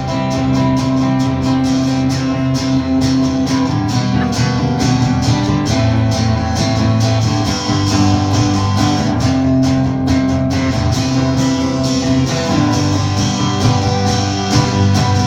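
Band's instrumental passage: guitar strummed in a steady rhythm over sustained chords.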